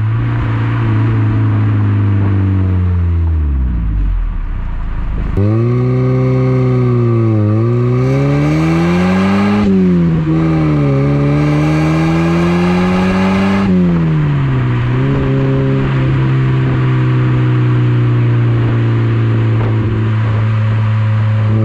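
Exhaust note of a 1990 Mazda Miata's 1.6-litre four-cylinder engine through a Car Make Corn's V-III dual-tip exhaust, heard at the tips while driving. The revs fall away over the first few seconds. It then pulls away, the pitch climbing and dropping back three times as it shifts up through the gears, and it settles into a steady cruise for the last several seconds.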